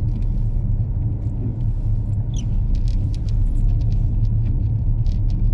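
Steady low road and engine rumble heard inside a moving car, with scattered faint ticks and clicks over it.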